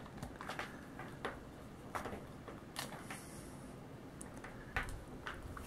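Faint, scattered clicks and rustles of hands handling a pipe cleaner and a plastic action figure's arm, pulling the pipe cleaner through the arm joint.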